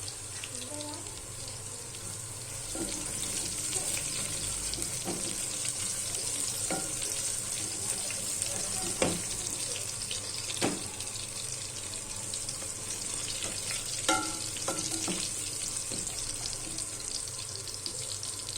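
Minced garlic sizzling in hot oil in a pan, a steady frying hiss, with a few sharp knocks of a utensil against the pan.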